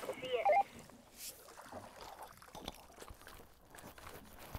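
Faint water sloshing and dripping from a landing net as it is lifted out of the lake, with a few light knocks on the boat; a brief voice at the very start.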